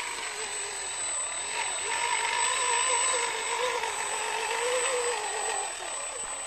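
Drive motor and gearbox of a loaded homemade 6x6 RC model farm truck whining under load, the pitch wavering as it crawls over rough dirt and the whine growing louder from about two seconds in.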